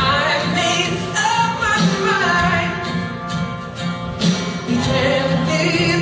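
A song plays: a singer's voice over instrumental backing at a steady level.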